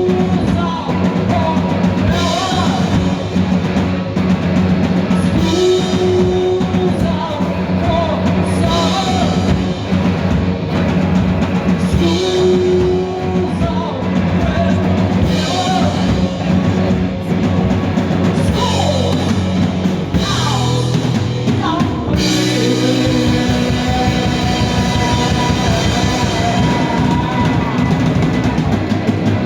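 Rock band playing: a drum kit keeps a steady beat under bass and electric guitar. The arrangement shifts into a new section about two-thirds of the way through.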